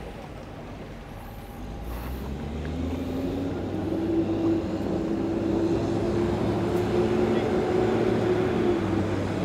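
Yamaha outboard motor on a deck boat running at low speed. Its pitch rises a couple of seconds in, then holds steady as it grows louder.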